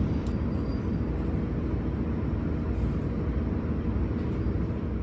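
Steady low diesel engine hum and rumble of JR Hokkaido H100 series DECMO diesel-electric railcars, heard from inside the cabin while the train stands at the station and a second H100 draws in on the next track.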